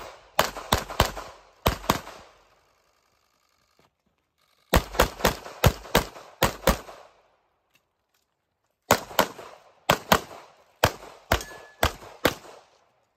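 Pistol fired in three rapid strings of shots, many in quick pairs, each sharp crack trailing a short echo, with about two seconds of quiet between strings.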